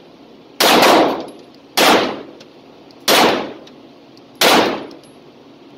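Four 9mm pistol shots from an Arex Rex Alpha, evenly paced about one every 1.3 seconds, each ringing off the concrete walls of an indoor range.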